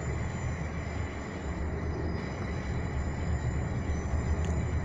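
Interior noise of a Class 360 electric multiple unit under way: a steady low rumble with a faint, steady high whine.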